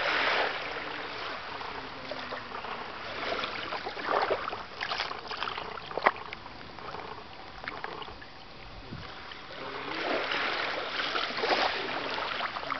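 Shallow sea water lapping and washing at the shoreline, swelling at the start and again near the end, with a few sharp little ticks in between.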